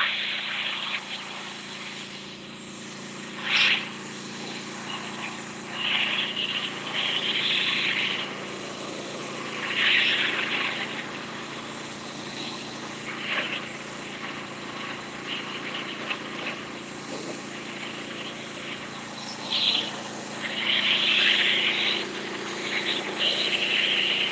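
Simpson 4200 PSI gas pressure washer, its engine running steadily, with loud hissing bursts of high-pressure spray blasting concrete steps each time the wand is triggered, several times over.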